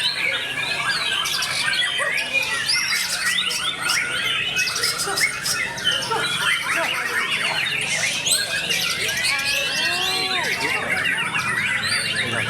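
Several white-rumped shamas singing at once, a dense tangle of overlapping loud whistles, quick rising and falling phrases, trills and rapid chatter with no break.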